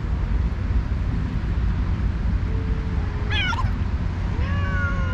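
Two cats yowling at each other in a territorial standoff: a low drawn-out moan about halfway through, a short high quavering cry, then a long low yowl near the end, over a steady low rumble.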